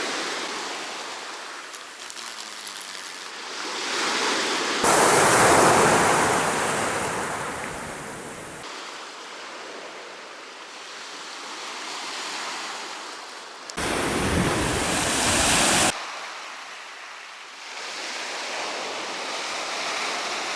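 Sea surf washing onto a beach, rising and falling wave by wave. Twice, for a few seconds each (about five seconds in and again near fourteen seconds), wind buffets the microphone with a louder rumbling rush that starts and stops abruptly.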